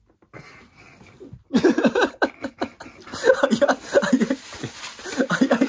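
A person laughing hard in quick repeated bursts, breaking out about a second and a half in after a faint start.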